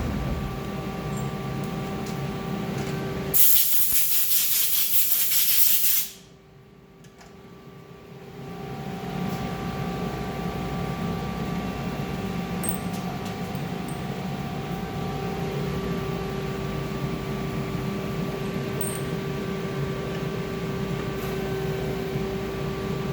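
Haas CNC lathe running with a steady mechanical hum and held tones. A few seconds in, a loud hiss lasts about two and a half seconds and cuts off. The machine then goes quieter for a couple of seconds before its hum builds back up.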